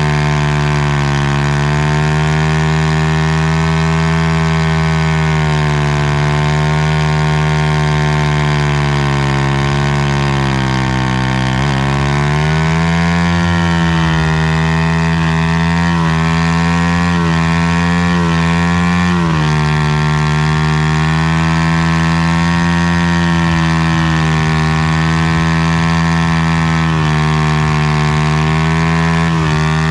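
Motorcycle engine running at steady, held revs with an even, continuous tone. Its pitch drifts slowly, sagging about ten seconds in, rising again around twelve seconds and settling slightly lower around nineteen seconds.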